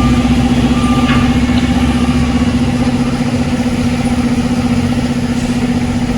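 Concrete batching plant machinery running with a steady, loud drone carrying one strong low hum.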